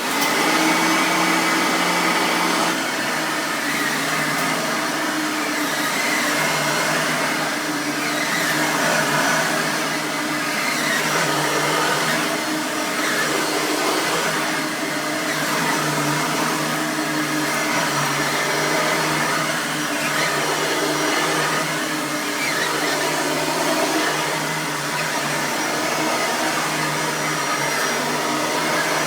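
Bissell 9-amp soft-bag upright vacuum cleaner switching on and running, a loud, steady motor sound with a low hum, its level swelling and dipping slightly.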